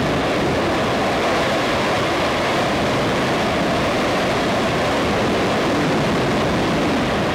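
Orion launch abort system's attitude control motor, a solid-propellant rocket motor, in a hot fire: a steady, loud rushing noise of exhaust jetting from its side nozzles.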